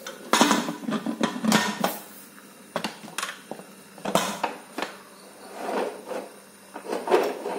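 Aluminium pressure cooker lid being set on and locked shut: metal clinks and knocks, a quick cluster in the first two seconds, then single knocks about once a second as the handles are brought into line.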